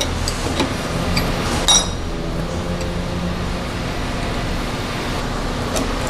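Wrenches clinking on the collet nut of a CNC router spindle during a bit change, with one sharp metal clink about two seconds in. A steady hum and hiss runs underneath.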